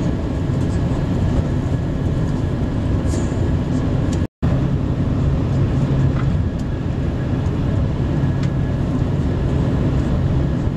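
Inside a TGV high-speed train at speed: a steady low rumble and rush of running noise with a faint hum. The sound cuts out for a fraction of a second about four seconds in.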